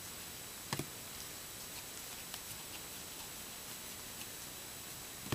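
Faint soft clicks of baseball trading cards being slid one by one from the front of a stack to the back, about two a second, over a steady hiss, with a sharper double click about three-quarters of a second in.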